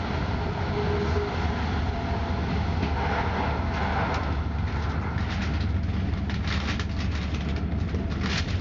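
A moving passenger train heard from inside the carriage: a steady low rumble of the train running along the track, with a rapid flurry of short clicks and rattles in the second half.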